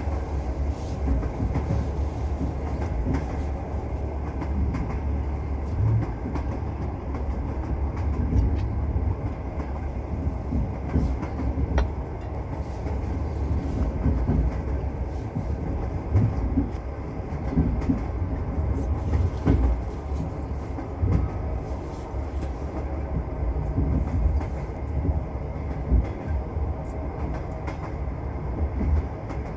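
Passenger train running, heard from inside the carriage: a steady low rumble of wheels on rails, broken by irregular clacks and knocks as the wheels pass over the rail joints.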